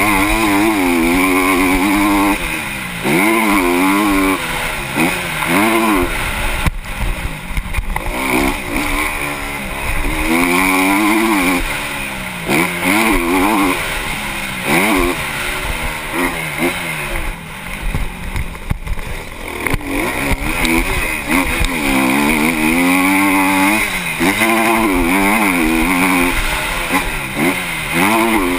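Honda CRF250R motocross bike's single-cylinder four-stroke engine, heard from the rider's helmet, revving up and down repeatedly as the throttle is opened and shut, with short drops in pitch between pulls.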